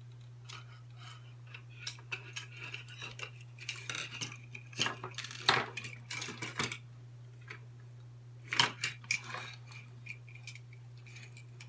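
Plastic parts of cheap headphones being forced apart by hand and with tools: scattered sharp clicks, cracks and clatters, busiest in the middle and again in a short cluster later on.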